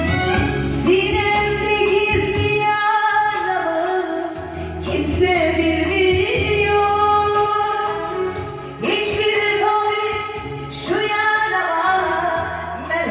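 A woman singing a Turkish song into a handheld microphone over instrumental accompaniment, in several long phrases with short breaks between them.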